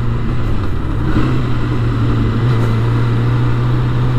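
Sport motorcycle's engine running steadily while riding, with wind noise. The engine note dips briefly and picks back up about a second in.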